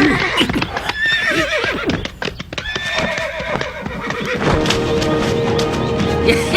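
Horses whinnying several times, with hooves clip-clopping. Music with a long held note comes in about two-thirds of the way through.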